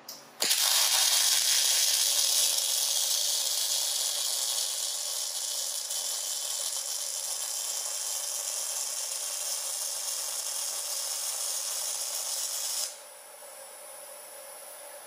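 A MIG welding arc runs one steady bead, sizzling and crackling. It strikes with a click about half a second in and stops abruptly about 13 seconds in, after which a fainter hiss remains.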